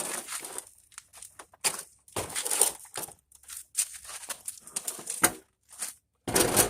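A TV's plastic casing cracking and snapping as it is pried apart, in a series of irregular crackling bursts, the loudest near the end.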